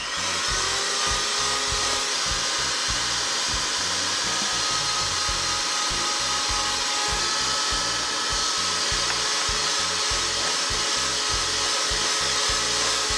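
Oster electric hand mixer switched on and running steadily, its beaters whisking eggs into creamed butter and sugar, with an even motor whine.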